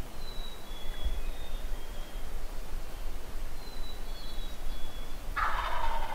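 Small birds sing short, thin, high whistled notes over a low steady rumble. Near the end a wild turkey gobbler bursts into a loud rattling gobble, the loudest sound here.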